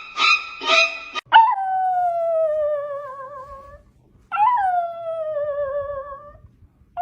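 A dog howling: two long howls, each rising briefly and then sliding slowly down in pitch, the second starting about four seconds in. The first second holds a few rhythmic pulses, about two a second.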